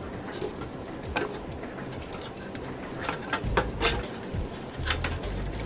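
Scattered light clicks and knocks of plastic PC-case parts and fan wiring being handled and fitted, with a quick run of clicks about three seconds in and a low rumble from then on.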